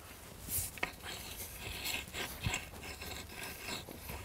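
Long-handled hoe blade scraping through dry, crusted soil in quick, repeated strokes, cutting small weeds just under the surface.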